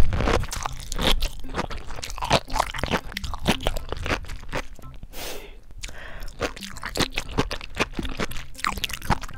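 Sea grapes chewed right at a handheld microphone: a dense run of small crunches and pops as the seaweed's tiny beads burst in the mouth.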